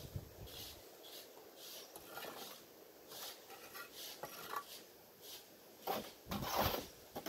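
A mason's trowel scraping mortar and tapping on hollow ceramic bricks as a course is laid: a scatter of short scrapes and taps, with a louder, longer scrape about six seconds in.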